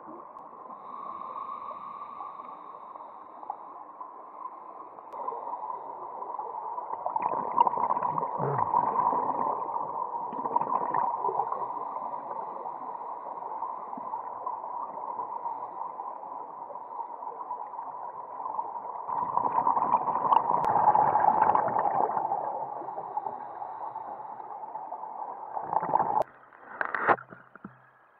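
Muffled underwater sound through a camera housing: a steady hum, with two longer gurgling rushes of a scuba diver's exhaled regulator bubbles. Near the end it drops away, leaving a few sharp splashy knocks.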